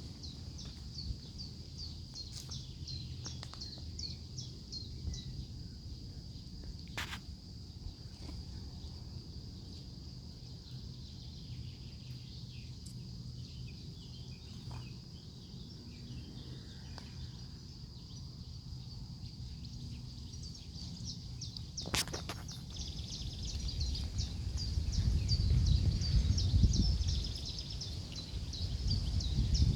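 Birds singing outdoors: high, rapid twittering in bursts, over a low rumble that grows louder near the end, with a couple of sharp clicks.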